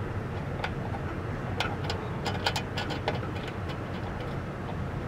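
Irregular small clicks and taps as a wing nut and bracket are tightened by hand inside a recessed downlight can, over a steady low background hum. The clicks cluster a little past the middle.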